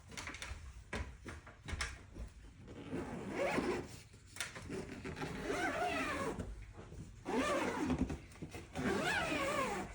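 Zipper on a fabric attic-stair cover being pulled open in several long strokes, each a sweeping rasp that rises and falls in pitch, after a few knocks at the start.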